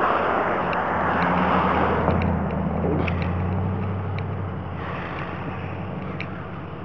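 Idling tow truck engine, a steady low hum. A rushing noise in the first two seconds fades away.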